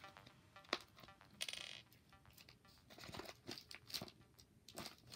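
Faint handling noises: scattered clicks and small taps with a short rustle about a second and a half in, as things are picked up and set down. Soft background music fades out within the first second.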